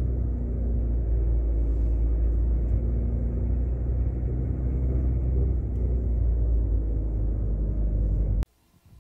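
Steady low rumble of a running motor vehicle, engine and road noise, cutting off suddenly near the end.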